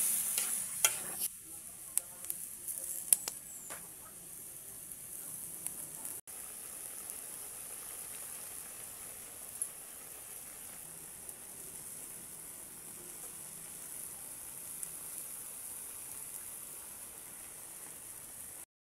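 Chicken in a thick sauce sizzling in a wok as it is stirred. A few sharp clicks of the utensil against the pan come in the first few seconds, then the sizzle settles to a quieter, steady hiss as the dish simmers.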